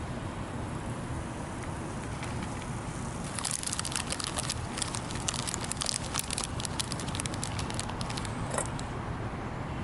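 Pancake batter crackling and sizzling in a hot pan over a campfire. It starts about three seconds in as a dense run of sharp pops and dies away near the end, over a steady low rumble.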